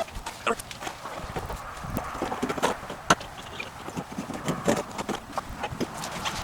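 Irregular clicks, knocks and crinkles of hands working a sticky sheet of butyl sound-deadening mat: peeling its backing and pressing it onto a car's sheet-metal floor pan.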